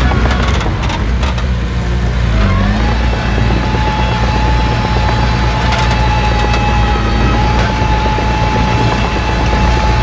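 Bulldozer's diesel engine running under load with a steady low drone. About two and a half seconds in, a whine rises and then holds level, and there are a few clanks.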